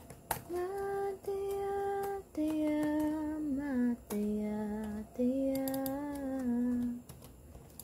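A woman singing in Tagalog without accompaniment, in long held notes that step up and down, with laptop keys clicking now and then and a quick run of taps a little after halfway.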